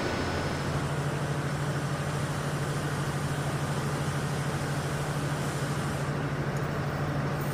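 Machinery running with a steady low hum over a dense mechanical din. The hum starts about half a second in.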